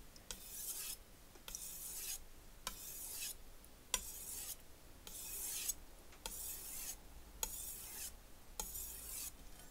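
Shun chef's knife edge being stroked along a whetstone in sharpening passes: about eight scraping hisses, roughly one a second, with short pauses between them.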